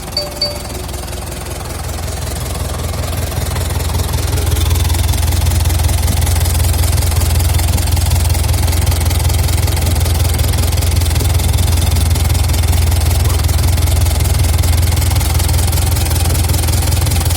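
D-240 four-cylinder diesel engine running steadily after a full overhaul, its injection pump timing not yet adjusted. It grows louder over the first few seconds, then holds an even note. Two short clicks come about half a second in.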